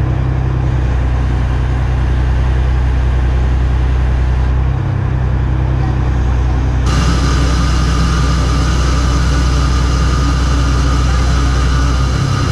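Crane's diesel engine running steadily under load while it lifts a marine engine, with brief dips in its hum; about halfway through, a higher whine joins in as the crane works the load.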